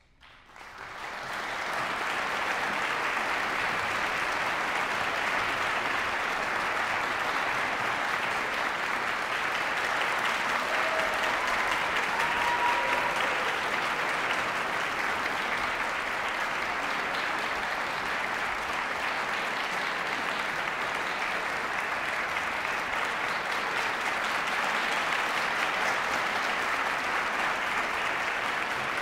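Large audience applauding: the clapping breaks out at once and builds within about two seconds to steady, full applause that holds.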